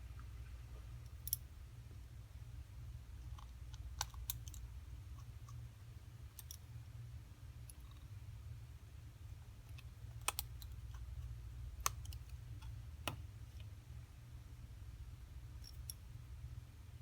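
Scattered small clicks and taps, about eight at irregular intervals, of tiny repair tools and metal parts handled on an iPhone 4S as it is worked on, over a steady low hum.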